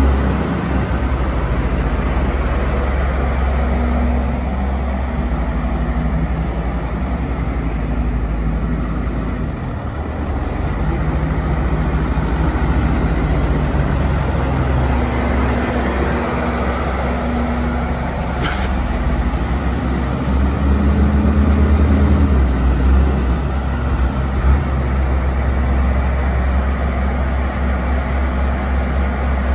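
Cummins diesel engine of a 1994 Ford CF7000 street sweeper truck running as it drives slowly over gravel, with a steady low rumble whose note shifts a little now and then, mixed with the scraping of its turning sweeper brushes. A brief high squeak about two-thirds of the way through.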